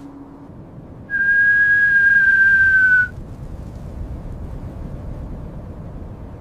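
A loud, steady, single-pitched whistle lasting about two seconds, its pitch dipping slightly just before it cuts off, over a faint low rumble.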